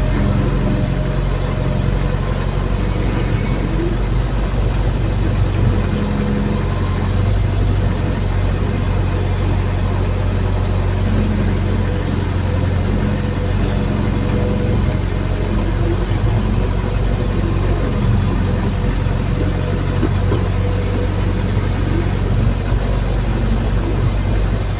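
Caterpillar excavator's diesel engine running with a steady low drone, heard from inside the cab as the machine digs.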